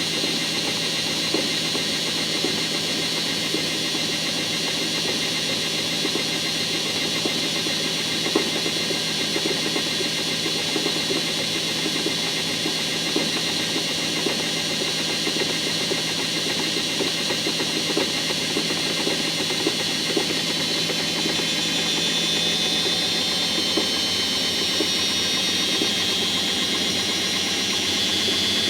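Washing machine running with its drum turning, with light irregular knocks and a steady high-pitched squeal. The squeal gets louder and wavers in pitch toward the end. These are the knocking and squealing the machine makes at low spin speeds, the fault the video was made to show.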